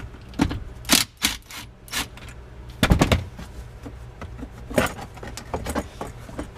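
Irregular sharp clicks and clanks of hand tools and metal parts being handled in a car's interior, with a quick cluster of knocks about three seconds in.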